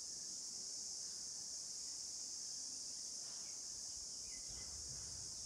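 Steady, high-pitched insect chorus running unbroken, with a couple of faint short chirps over it.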